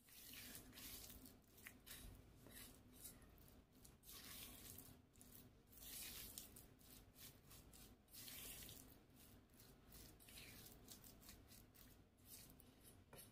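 Faint, irregular scraping and stirring as a silicone spatula works thick oat-and-raisin cookie dough around a stainless steel bowl.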